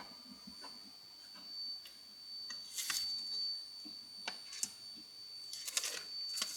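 Scattered clicks and taps of small tools and parts being handled on an electronics workbench, a few at a time, with a faint steady high-pitched whine underneath.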